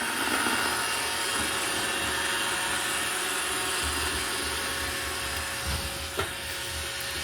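iRobot Roomba robot vacuum running across the floor: a steady, noisy whirr of its vacuum motor and brushes, with a faint steady whine.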